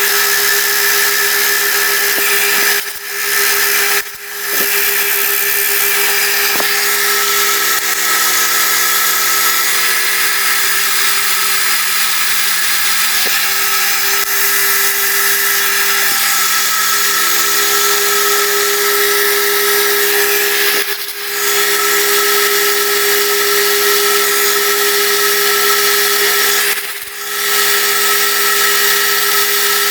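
Milling machine running with a boring head cutting out a hinge hole in a cupboard door: a steady hum with a high hiss, dropping away briefly four times.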